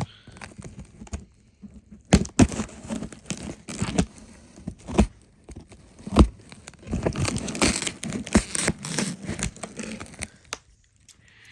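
Cardboard shipping box and its packing being opened and handled by hand: tearing and crinkling, with irregular sharp knocks and clicks of the box.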